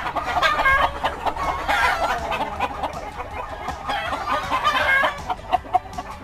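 A flock of chickens clucking and calling over one another, with short sharp ticks mixed in.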